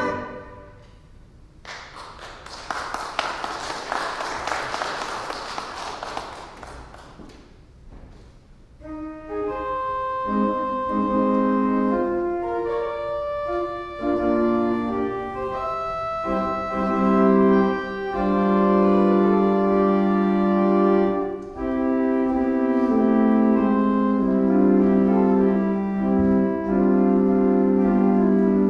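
A church pipe organ playing slow, sustained chords. It comes in about nine seconds in, after several seconds of scattered noise.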